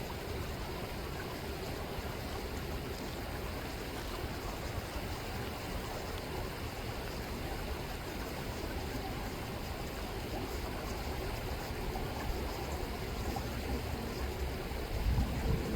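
River water rippling and rushing steadily, with a brief low rumble near the end.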